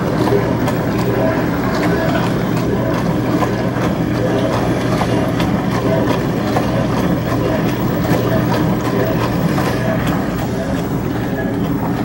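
Haier HDC1804TW portable dishwasher running in its wash cycle: a steady pump hum with water spraying inside the tub.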